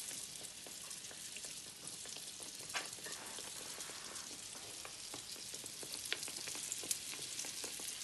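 Samosas deep-frying in hot oil: a steady sizzle and crackle, with a few sharper ticks.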